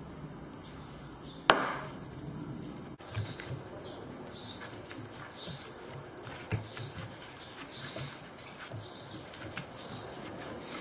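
A single sharp click, then a run of rasping, scraping strokes about one a second, typical of hand-tool work on a workpiece.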